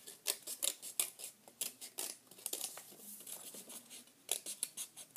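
Scissors cutting paper: a run of quick, sharp snips, several a second, easing off briefly about three seconds in and then picking up again.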